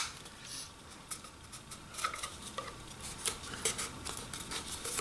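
Light, scattered clicks and soft rustles of patterned paper being pressed and smoothed by hand around a small paper cup, the freshly glued cover tapped into place.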